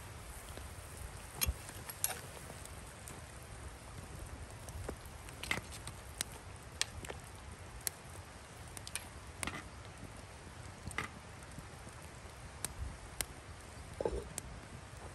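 Metal spoon and utensil clinking and tapping against a glazed ceramic dizi pot as the simmering stew is stirred and the meat checked: scattered sharp clicks. Near the end the ceramic lid is set back on the pot with a short ringing knock.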